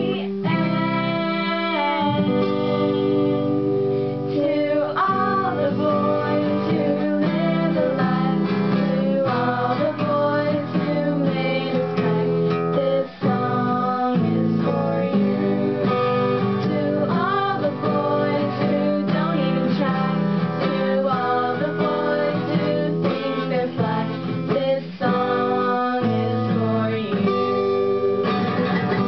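Guitar-led music playing steadily.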